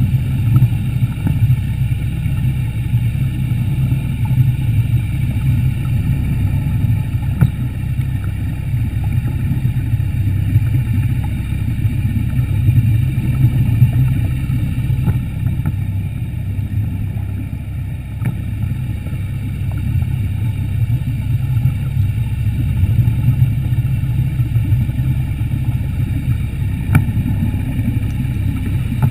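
Underwater scooter running steadily: a low, even rumble of its motor and propeller wash, with a few faint ticks.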